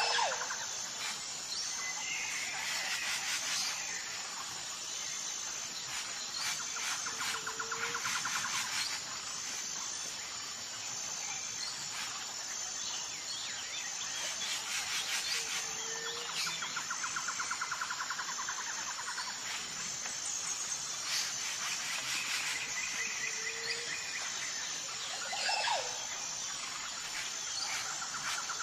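Jungle ambience: insects buzzing steadily, with bird calls and trills over it and a short, low call that comes back about every eight seconds.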